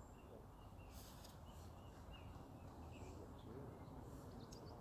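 Near silence: a faint low rumble of outdoor ambience with a small bird's short, high chirps repeating, and a few faint ticks about a second in.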